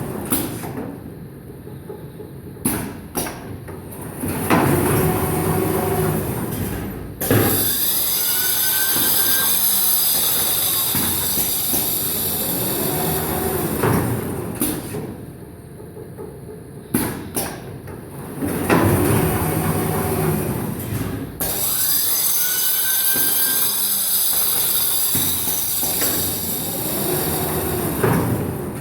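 Automatic film cutting-to-length machine working through its cycle twice. Each cycle is a few sharp clicks, then several seconds of steady running with a strong hiss, repeating about every fourteen seconds.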